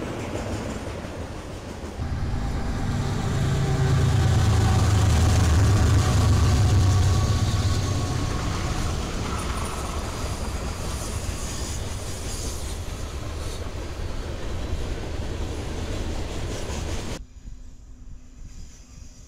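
Freight trains passing close by: a diesel locomotive's low engine rumble, loudest a few seconds in, then the steady rolling noise of freight cars on the rails. About seventeen seconds in the sound drops abruptly to a quieter train.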